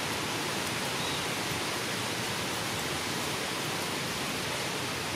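A steady, even hiss of noise, with no separate sounds standing out from it.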